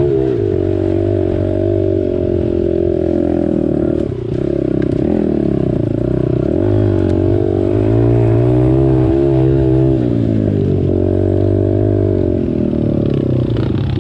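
Pit bike's small single-cylinder four-stroke engine running under load on the trail, revving up and down with the throttle and easing off briefly about four seconds in and again around ten seconds.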